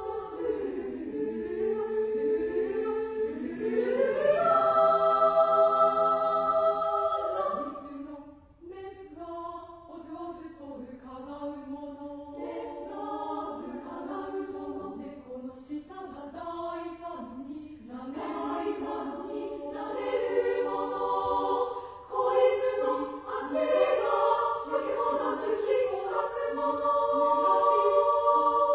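Women's chorus singing in several parts. The voices slide against one another at first, hold a loud chord from about four to seven seconds in, then move in quieter, shorter notes before swelling again in the last third.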